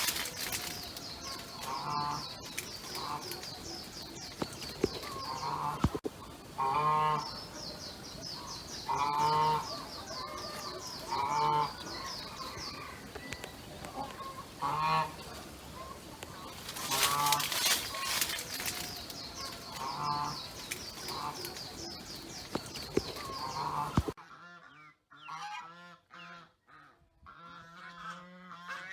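Farm animals calling: short, repeated calls every second or two over a steady high chirring. The background drops away suddenly about four seconds before the end, and the calls continue more clearly.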